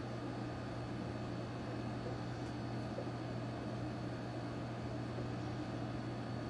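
Steady low hum of room background noise with a faint high whine above it, unchanging throughout.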